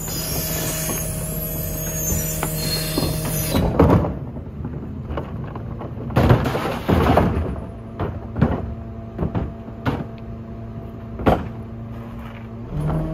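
Garwood rear-loading garbage truck idling. Its compactor gives a high metallic squeal until about three and a half seconds in. Wheelie bins then knock and clatter against the rear bin lifter, and near the end the hydraulics engage with a rise in the engine note.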